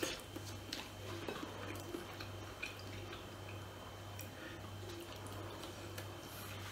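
Close-up eating sounds: soft wet chewing and mouth smacks with small clicks of fingers picking at rice and chicken on a plate, over a steady low hum.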